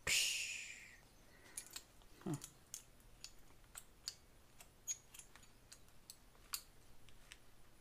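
A short hiss fading out over about a second, then scattered small clicks and taps as small screw-in pop-off valves are handled, with a brief falling vocal sound about two seconds in.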